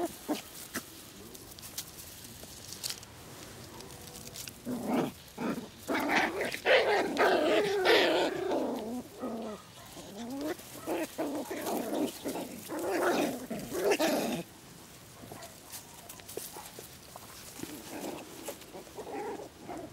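Young poodle puppies vocalising in bouts of short yips and whines that bend in pitch, loudest from about six to eight seconds in, then fainter toward the end.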